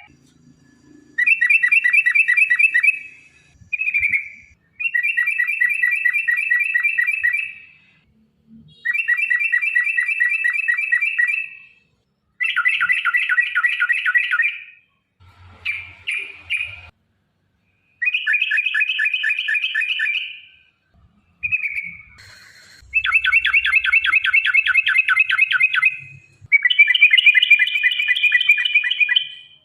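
Yellow-vented bulbul (trucukan) singing long chattering phrases: rapid runs of repeated notes, each burst lasting about three seconds, repeated over and over with short pauses, plus a couple of brief single calls.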